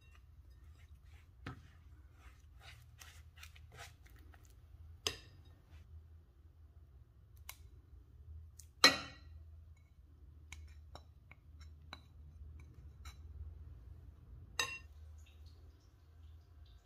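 Silicone spatula scraping and mashing butter and powdered sugar against a glass mixing bowl, with scattered soft ticks. Three sharper glass knocks stand out, the loudest about nine seconds in, ringing briefly, as a small glass bowl of egg yolks touches the rim of the mixing bowl.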